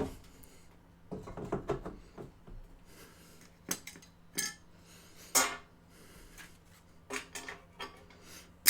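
Trading cards and plastic card holders being handled and set down on a table: scattered clicks and taps, the sharpest one near the end.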